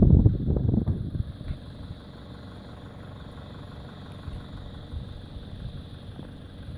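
Off-road vehicle engine running at a steady low rumble, after loud low knocks and thumps in the first second or so.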